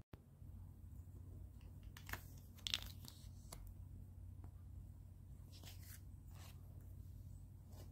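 Plastic poly school folders crinkling as they are handled, in a few short crackles about two, three and six seconds in, over a low steady hum.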